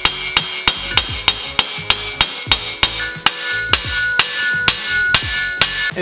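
Hammer blows knocking BMX cranks out of the frame: steady, evenly spaced strikes, two to three a second, each with a short metallic ring. The stuck cranks are moving, but really slowly.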